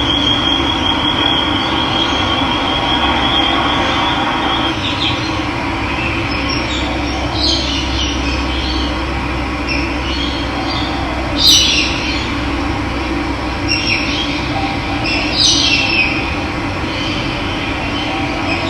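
Running water making a steady rushing sound, with birds chirping briefly about five times over it. A thin steady high whistle runs over the water for the first four or five seconds.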